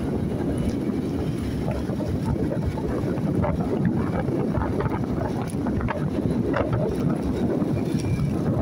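Wind buffeting the microphone of a moving rider, over a steady low rumble of road and engine noise.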